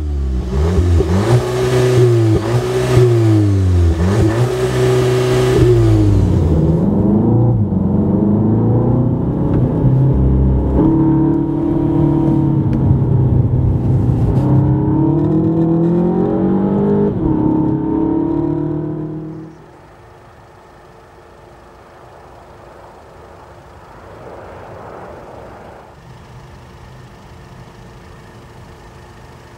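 Audi A1 40 TFSI's 2.0 TFSI turbocharged four-cylinder engine revving and accelerating, its pitch climbing and dropping again at several gear changes. About twenty seconds in it gives way suddenly to a much quieter, steady hum.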